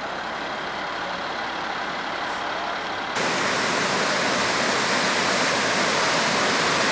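Floodwater rushing, loud and steady from about three seconds in, as it pours off the broken edge of a washed-out road into the eroded gully below. Before that, a softer steady rushing noise.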